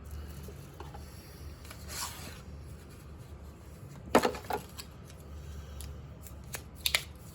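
Handling noises from a doorbell unboxing, as the unpacked parts and packaging are moved around: a short rustle about two seconds in, then several sharp clicks and knocks, the loudest about four seconds in and a few more near the end, over a steady low hum.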